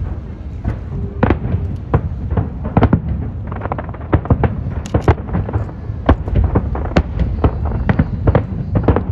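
Aerial fireworks display: a rapid, irregular run of sharp bangs and booms, several a second, over a continuous low rumble.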